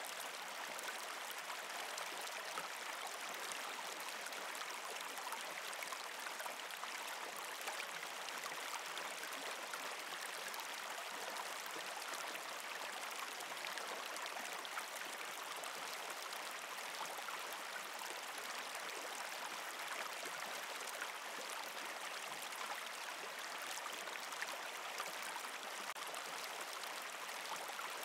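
Steady flowing water like a small stream, an even hiss that does not change.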